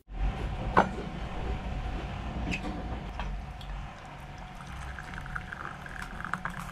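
Liquid pouring from a stainless steel vacuum flask into a ceramic cup, with a sharp click about a second in.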